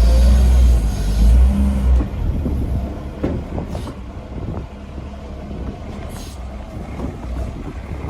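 A heavy engine running with a deep rumble, loud for the first two seconds and then quieter, with scattered knocks and clicks over it.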